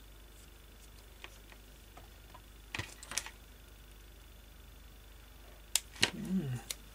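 Scattered light clicks and taps from handling a small N gauge model locomotive and its bogie, with a pair of louder clicks about three seconds in and a few more near the end, over a faint steady high tone.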